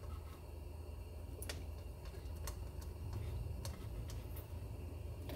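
Potato chunks being taken by hand from a ceramic bowl and dropped into a large pot of simmering broth: a few faint, sharp clicks roughly a second apart over a steady low hum.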